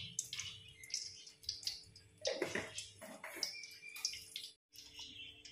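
Mustard seeds sizzling in hot oil with irregular faint crackles and pops, the tempering step of a South Indian stir-fry.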